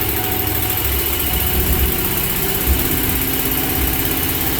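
Ford 4.6-litre V8 engine running, with a loud, even hiss over it that stops shortly after the engine sound settles.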